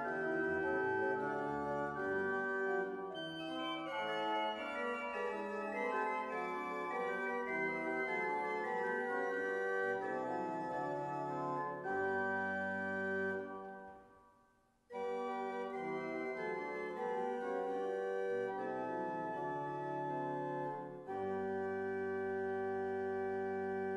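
The 1994 Van Vulpen pipe organ playing flowing contrapuntal lines. About 14 seconds in the music stops at a cadence and dies away briefly in the room before playing resumes. It ends on a long held chord with deep bass notes.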